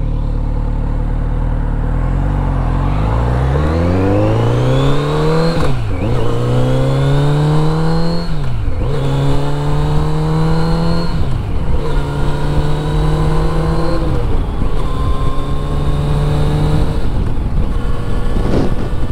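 Kawasaki Z900RS inline-four engine under hard acceleration, climbing in pitch through the gears with four upshifts, then holding a steady pitch at cruising speed. Wind rush runs underneath.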